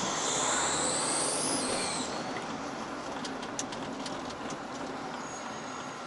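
Road and engine noise of a moving vehicle heard from inside, with a high-pitched squeal that rises and then falls over the first two seconds. About three to four and a half seconds in comes a run of light clicks.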